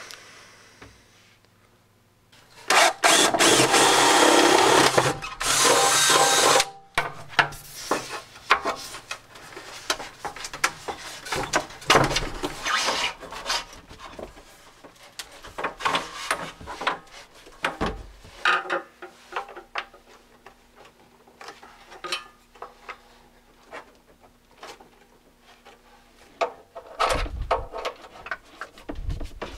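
Handling noises: vinyl tubing, a small pump and a plastic tote being knocked, rubbed and clicked, with two loud rushing noises a few seconds in.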